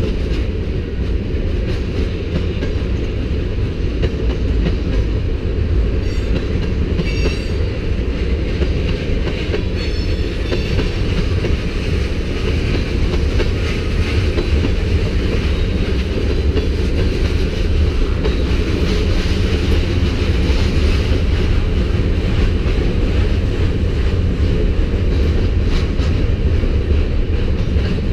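Freight cars of a manifest train rolling past on the mainline: a steady, loud low rumble of steel wheels on rail, with a few brief high-pitched wheel squeals about six to ten seconds in.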